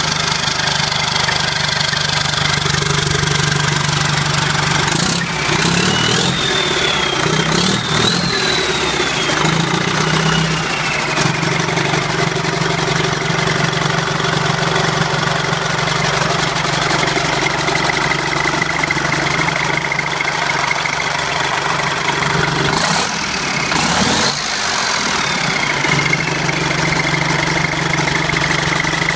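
Freshly rebuilt Detroit Diesel Series 50 four-cylinder diesel running steadily just after start-up. A high turbo whistle rises and falls twice, about five seconds in and again about twenty-three seconds in, as the engine note shifts. A steady high whine carries through the rest.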